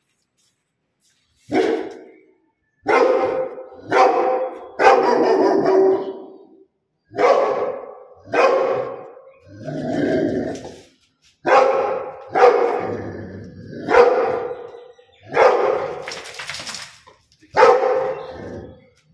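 Rottweiler barking repeatedly: about a dozen loud barks with short pauses between them, beginning about a second and a half in.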